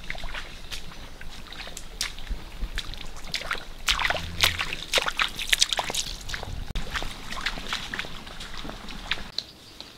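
Bare feet splashing step by step through a shallow stream, uneven sloshes that are loudest around the middle and fade near the end.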